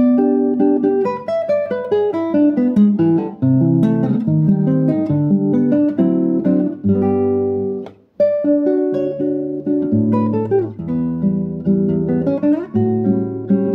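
Solo classical guitar fingerpicking a Brazilian choro, with a plucked melody over a moving bass line and a brief break about eight seconds in.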